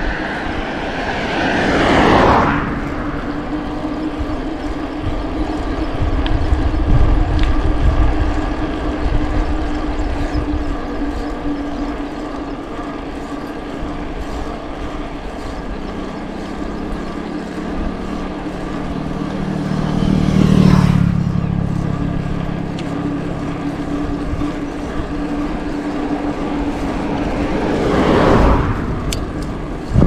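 Bicycle ride with wind rumbling on the microphone and a steady hum, as motor vehicles pass three times, each swelling and fading: one about two seconds in, a longer one with an engine note building to a peak just past the middle, and another near the end.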